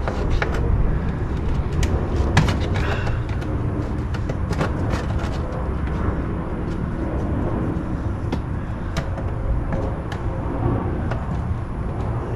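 Scattered sharp clicks and knocks of plastic trim clips and the wheel-well liner being worked loose and pried out, over a steady low rumble.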